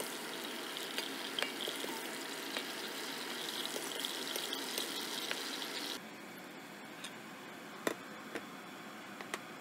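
Hot vegetable oil sizzling steadily as chicken pieces fry and are lifted out with a wire mesh strainer, with a few light ticks. About six seconds in it cuts to a quieter hiss with occasional sharp clicks.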